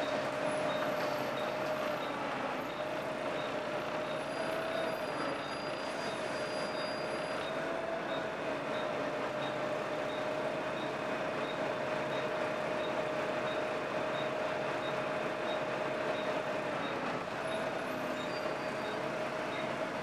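Volvo B7TL double-decker bus engine running with a steady, slightly wavering whine over the general engine and road noise: the weird engine noise of this bus. Faint high ticks repeat about two to three times a second.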